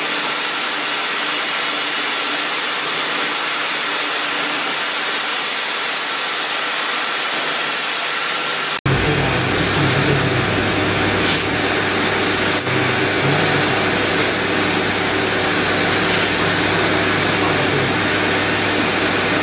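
Rotary jade-carving handpiece spinning steadily with its pointed bur against a jade pebble, a continuous motor whir over a broad hiss. It drops out for an instant about nine seconds in, and a deeper steady hum joins the whir from then on.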